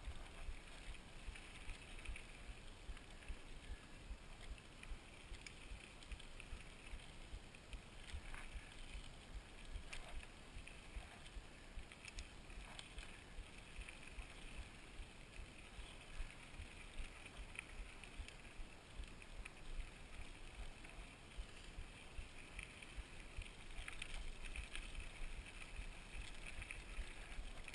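Mountain bike rolling on a dirt trail: low, pulsing wind rumble on the action-camera microphone over a steady hiss of tyres and drivetrain, with a few faint clicks and rattles.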